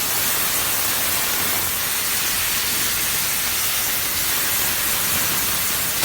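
A 20 kW fibre laser cutter cutting through 25 mm carbon steel plate makes a loud, steady hiss. It stops abruptly at the very end.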